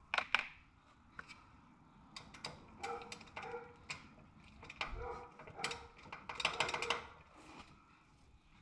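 Irregular metallic clicks and clinks of a hand wrench working on a motorcycle's shifter lever and linkage while the lever is being reset lower.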